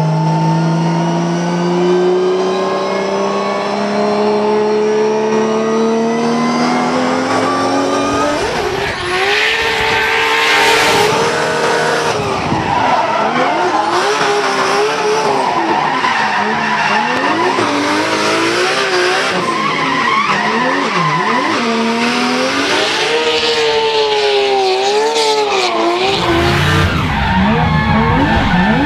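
Nissan RB26 straight-six in a 1000 hp BMW M3 drift car, heard from inside the cabin: the engine climbs steadily in pitch for about eight seconds under full throttle. It then rises and falls repeatedly with the throttle as the car drifts, with tyres squealing in bursts.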